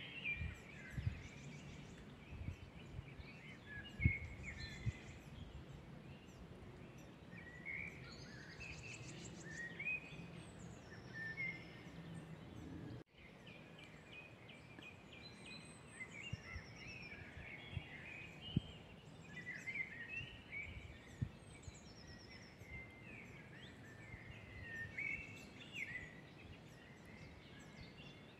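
Woodland birds singing and calling, several at once, with short chirps and quick trills overlapping throughout. A few faint low thumps sit underneath, and the sound cuts out for a moment about halfway through.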